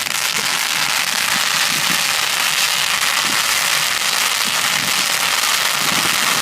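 Fireworks crackling overhead: a dense, continuous rapid crackle of many small pops, with no big booms.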